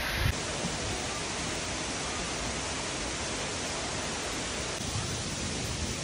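Steady rush of a tall cascading waterfall: an even hiss of falling water with no breaks or surges.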